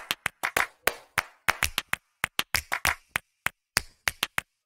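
Percussive background music: short, sharp clap-like hits about three a second, with nothing between them.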